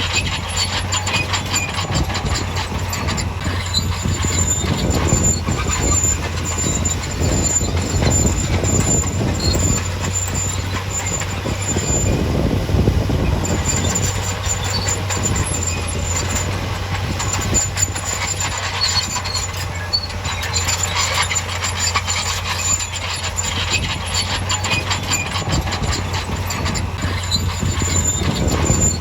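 Heavy diesel earthmoving machine running under load, with a steady low engine drone and continuous metallic clatter and squeal like steel crawler tracks.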